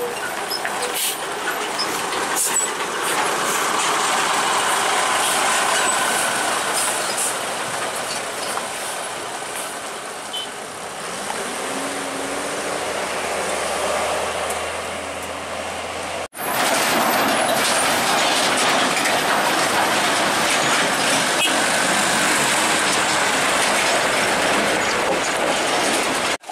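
Road traffic climbing a steep gravel grade: vehicle engines under load and tyres on loose gravel, heard as a steady noise. It breaks off abruptly for a moment about sixteen seconds in, then carries on.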